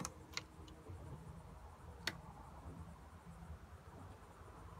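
Quiet cabin room tone with a few faint clicks as a wooden storage-locker door is opened and handled, one near the start and one about two seconds in.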